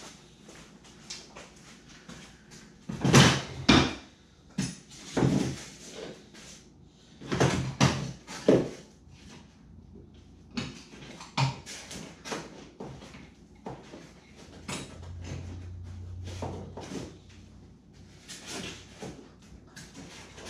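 Clamps and wood pieces being handled and fitted to the boat's side: a string of knocks and clatters, several loud ones in the first half and quieter rattling after.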